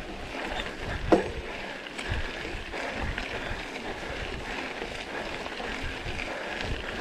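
Mountain bike rolling along a forest trail: steady tyre and riding noise with small clicks and rattles, and one sharp knock about a second in.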